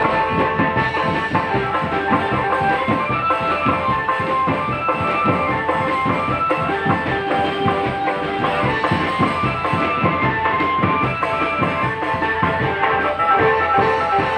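Marching drum band playing: rapid, steady drumming under a sustained melody line.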